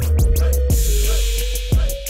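Background music with heavy bass, a held synth tone and a steady drum beat.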